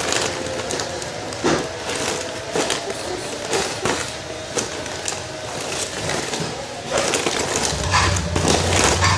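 Rustling with scattered light knocks and clicks: someone rummaging through a pile of squishy toys and their packaging, searching for one. A low steady hum comes in near the end.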